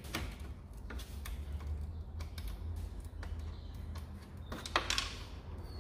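Light clicks and scrapes of a 10 mm socket on a screwdriver-style handle turning a nut off a plastic truck grille. About five seconds in comes a sharper snap, where the plastic stud holding the nut breaks.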